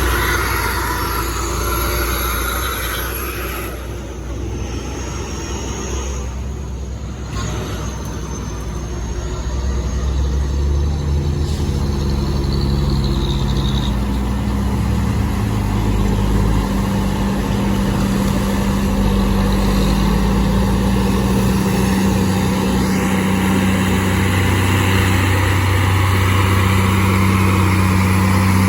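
Heavy diesel truck engine labouring on a steep uphill climb. Its low note shifts down and up a few times.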